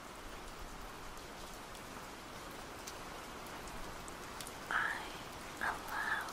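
A steady, even hiss like light rain. Near the end come a few short, soft whispered sounds.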